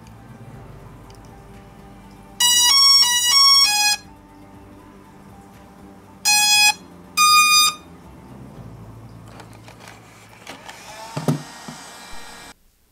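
Hubsan Zino 2 drone powering up with its electronic start-up beeps: a quick run of about five notes of changing pitch, then a few seconds later two single beeps, a lower one and then a higher one. Quiet background music runs underneath.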